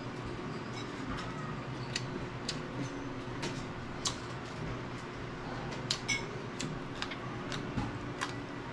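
Eating sounds: irregular sharp clicks and crunches, roughly one or two a second, from eating raw green vegetables. A steady low hum runs underneath.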